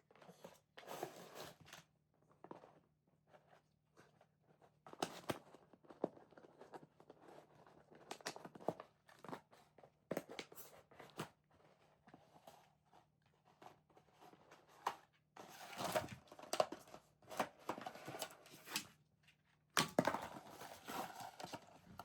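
Irregular rustling, crinkling and knocking sounds in short bursts, louder in the second half, over a faint steady hum.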